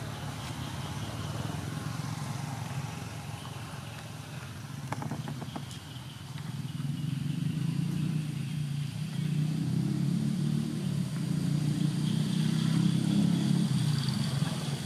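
Low engine rumble of a motor vehicle, growing louder from about six seconds in and loudest near the end.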